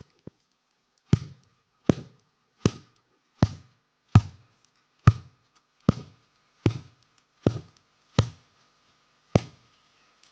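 A series of about eleven sharp strikes at a steady pace of a little over one a second, each a crisp hit with a short low thud, stopping shortly before the end.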